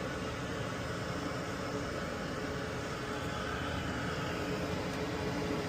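Steady background hiss and low hum with a faint constant tone, unchanging throughout.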